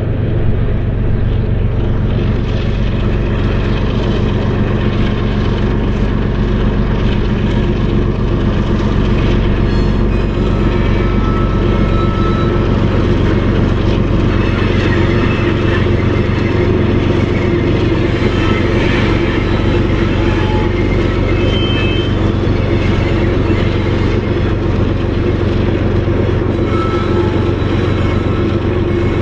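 Diesel locomotives at the head of a BNSF empty coal train working hard up a grade: a steady, loud engine drone with deep, even low tones.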